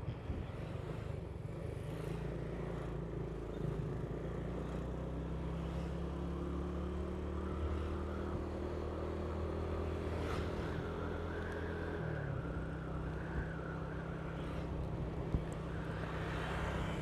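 Vehicle engine running steadily at road speed with road noise, the engine note dipping about twelve seconds in.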